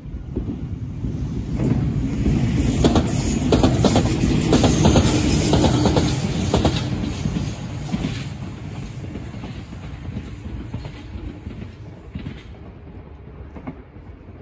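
Four-car Enshu Railway (Entetsu) electric commuter train passing, its wheels clattering over the rail joints. The sound builds to a peak with a run of sharp clacks about three to seven seconds in, then fades as the train runs away into the distance.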